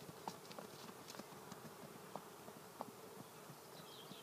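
Faint steady buzzing with scattered soft ticks, and a brief high chirping near the end.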